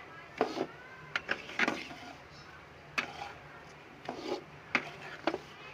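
Flat metal spatula scraping and knocking against a kadhai as semolina is stirred while it roasts in ghee: a series of short, irregular scrapes.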